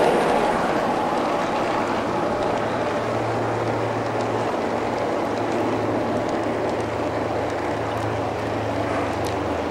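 G-scale model freight cars rolling past on garden-railway track, a steady rolling clatter of wheels on rail. The sound is louder at the very start and settles within the first second.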